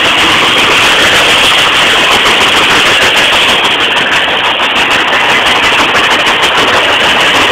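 Freight cars of a passing train rolling by: a loud, steady rumble with rapid rattling clatter of wheels on the rails.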